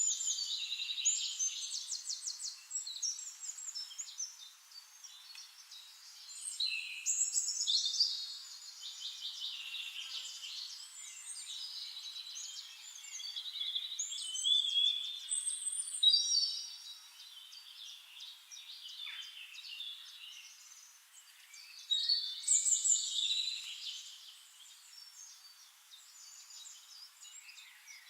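Songbirds singing: a busy run of varied chirping, warbling phrases and rapid trills, with louder phrases swelling up every several seconds.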